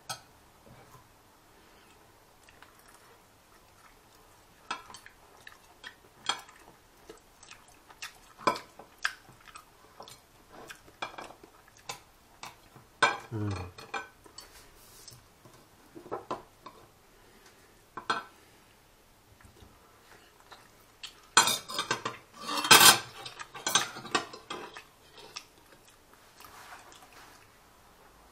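Metal fork and spoon clinking and scraping against a ceramic plate while pulling apart a roast goose: scattered irregular clicks, with a louder run of clatter about three quarters of the way through.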